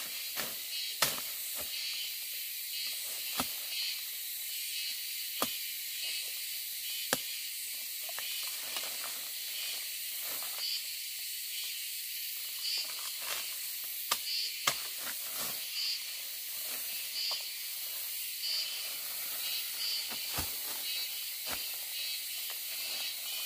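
A steady high insect chorus, hissing and pulsing in short chirrs. Scattered sharp clicks and snaps come every few seconds over it.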